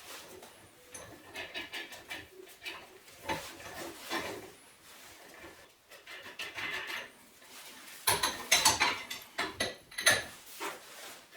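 Small metal parts and tools clinking, knocking and scraping against each other as they are handled by hand, in an irregular run. A louder burst of clatter comes about eight seconds in and lasts a couple of seconds.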